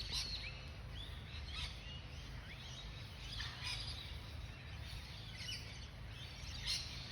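Birds going off in alarm, a scatter of short chirps and sliding notes repeated every second or so, raised at a yellow-spotted monitor hunting nearby. A low steady rumble lies underneath.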